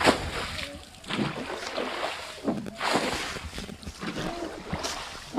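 Water splashing and sloshing as a tin container swung on ropes scoops water out of a small pond and throws it aside, with a splash every second or two. The pond is being bailed out to get at the fish.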